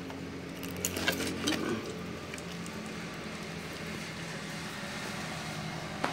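A steady low mechanical hum, like an engine running, with a few short knocks and rustles about a second in and again near the end.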